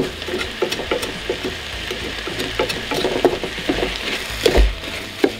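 A utensil stirring raw rice, seasoning and vegetables in a hot oiled pot, scraping and clicking against the pot in quick, irregular strokes.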